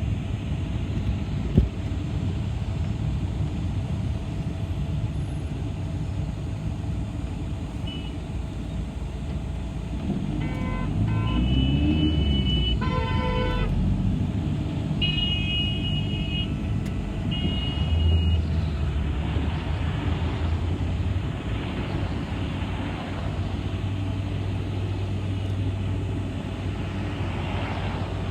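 City bus running, a steady engine and road rumble. In the middle comes a run of short high beeps and tones, some repeated, and there is a single sharp knock about a second and a half in.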